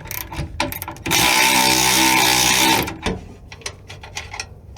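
Cordless power tool running steadily for about two seconds while backing off the trailing-arm bolt, with light clicks and knocks of tool handling before and after.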